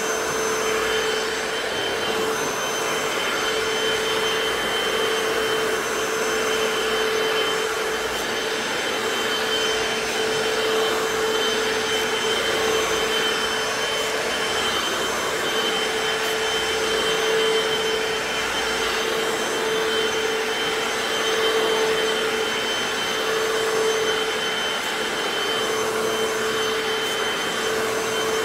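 Hoover FloorMate wet hard-floor cleaner running steadily: a constant motor whine over the hiss of its suction.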